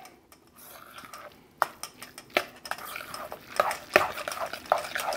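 Guacamole being stirred in a stainless steel mixing bowl: irregular clinks and scrapes of the utensil against the bowl, starting about a second and a half in.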